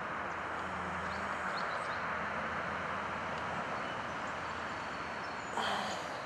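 Steady hum of distant road traffic, with a few faint bird chirps and a brief louder rush of noise about five and a half seconds in.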